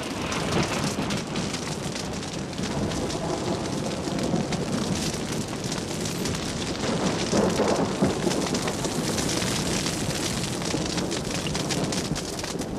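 Grass and scrub fire burning, a dense steady crackling over a low rumble of flames, swelling a little past halfway.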